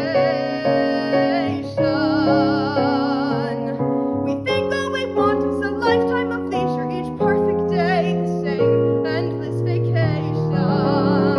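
A woman singing a musical-theatre song with piano accompaniment: two long held notes with wide vibrato, then a run of quicker, shorter notes, and another held vibrato note near the end.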